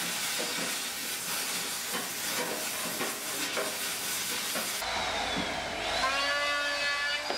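Gas welding torch hissing steadily as steel frame pieces are welded. About five seconds in it gives way to a hand-held electric sander spinning up on a wooden panel, a whine that rises in pitch and then holds steady.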